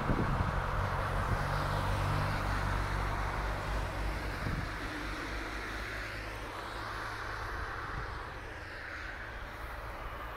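A line of cars driving past on a wet road: engine hum and tyre noise, with the engine hum weakening after about four or five seconds as the overall sound slowly fades.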